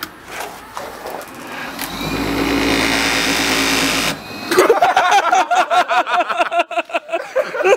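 Small wood lathe's motor running, with a hand chisel cutting into a spinning frozen chicken breast; the result is a steady whirring hum. From about four and a half seconds a louder warbling sound with quick clicks takes over.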